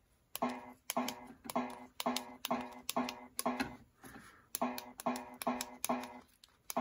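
Pinball MPU in switch test giving a short pitched beep each time a switch is closed on a push-button tester board, about two a second with a brief pause about four seconds in. Each beep is the board's confirmation that a switch-matrix input is being read.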